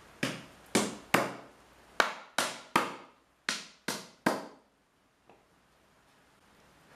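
Hammer driving nails into a wooden board: nine sharp blows in three quick sets of three, then a faint tap near the end.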